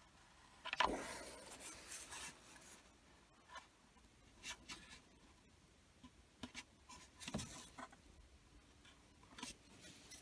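Hard plastic car-console trim handled by hand while a USB socket is pressed into its holder: scattered clicks and light rubbing, with a louder knock about a second in and another near seven seconds.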